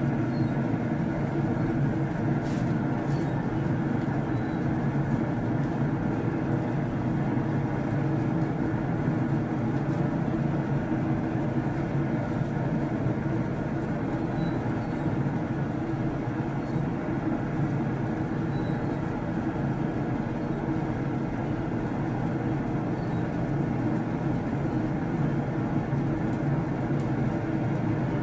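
Camp Chef pellet smoker running with a steady low hum and whir from its fan.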